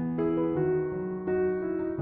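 Background piano music, gentle notes changing about every half second.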